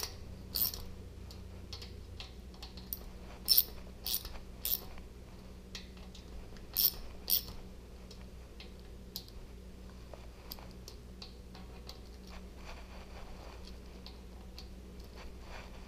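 Small metal clicks and clinks of nuts, washers and hand tools as the nuts are run down onto the oil pump cover studs of a VW Type 1 engine. A handful of sharper clinks come in the first half, followed by fainter, irregular ticking.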